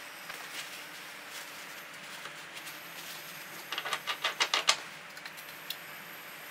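Handling of an iron pipe leg and a caulk gun on a workbench: a quick run of about eight clicks lasting about a second near the middle, with a few softer ticks around it, over a steady faint hiss.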